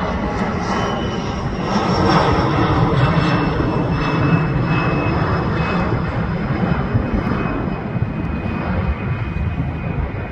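Twin rear-engined regional jet climbing out overhead: a steady jet-engine roar with a faint high whine that slowly drops in pitch, easing slightly near the end as it draws away.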